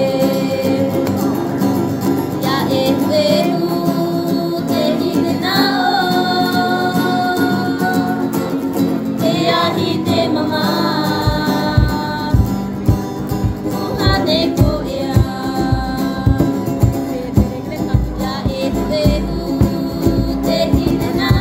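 Background music: a song with a sung melody of long held notes, joined about halfway through by a steady low drumbeat.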